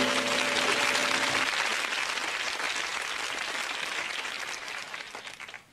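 Studio audience applauding, the applause fading steadily to nothing over about five seconds. A short music cue ends on a held chord about a second and a half in.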